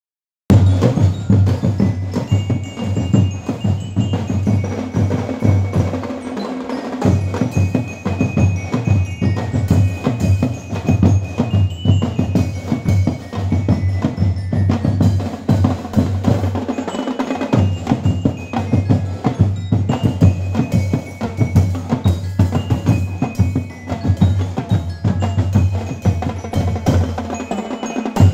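A marching drum and bell-lyre band playing: a bright bell-lyre melody over a steady, dense beat of bass and snare drums. The low drum drops out briefly a few times.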